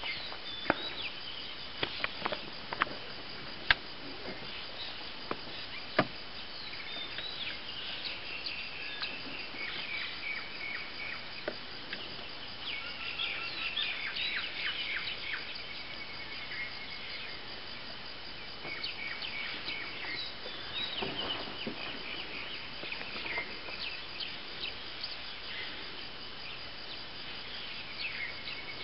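Forest ambience: birds chirping and calling over a steady insect hum, with several sharp clicks or knocks in the first few seconds.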